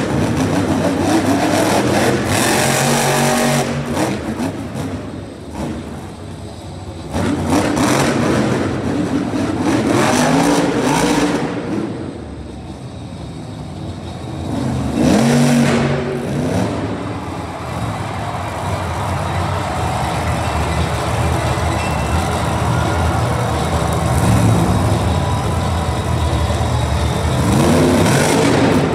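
Monster truck's supercharged V8 revving hard in repeated surges, the pitch climbing and dropping, easing to a lower drone around the middle and climbing again near the end.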